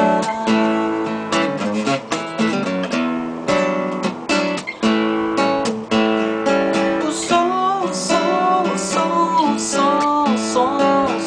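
Music: a rhythmically strummed acoustic guitar playing chords between sung verses, with a sliding melody line coming in over it about seven seconds in.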